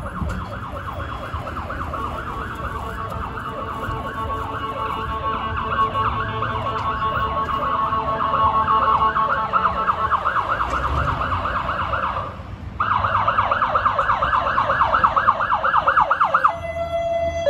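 Ambulance electronic siren on a fast warbling tone that sweeps up and down many times a second, growing louder. It drops out briefly about three quarters of the way through, comes back, then switches about a second before the end to the two-note hi-lo.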